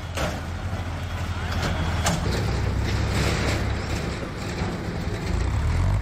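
Diesel engines of JCB backhoe loaders running under load while demolishing a building: a steady low rumble that grows a little louder near the end. A sharp knock comes at the start and another about two seconds in.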